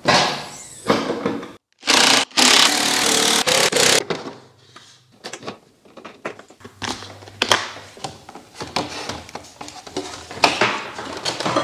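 Hands prying and rubbing the plastic dash panels of a Kawasaki jet ski and working a wiring connector loose: scraping and rubbing with scattered clicks, in short cuts. There is a loud stretch of scraping a couple of seconds in.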